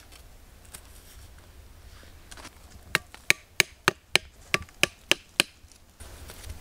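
Wooden stakes being knocked into the ground with a striking tool: about nine sharp knocks at roughly three a second, starting about three seconds in. The stakes build a fence that funnels animals into a single entry to a snare trap.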